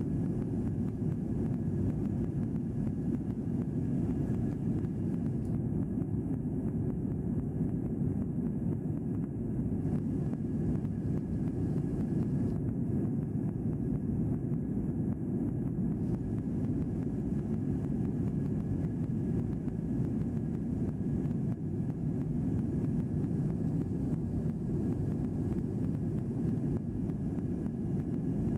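Airliner cabin noise in flight: a steady low rumble of the engines and the air rushing past the fuselage, with a faint steady high hum.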